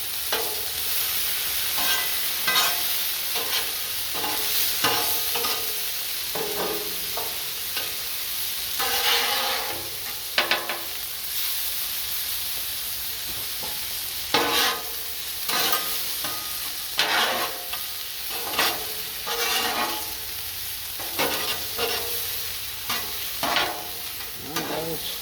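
Chicken sizzling on a hot Blackstone 22-inch flat-top griddle, a steady hiss, with irregular scrapes and knocks of a utensil moving the food around on the steel cooking surface.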